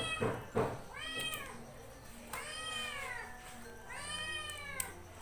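A cat meowing four times, each call rising and then falling in pitch, the later ones longer and drawn out.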